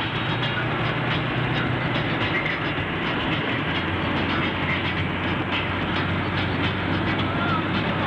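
Steady drone of a car driving at speed, heard inside the cabin: a constant low engine hum under road noise.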